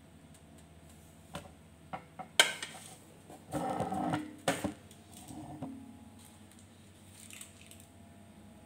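Kitchen handling noises: a few sharp knocks and clinks between about one and two and a half seconds in, the loudest at about two and a half seconds, then about a second of clattering and rustling a little later, with a last knock just after it.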